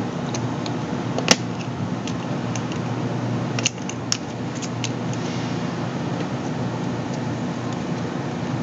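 Steady room hum with a few small sharp clicks, one about a second in and two a little before the middle, from fingers working the ribbon-cable connector latches on a GPS logic board.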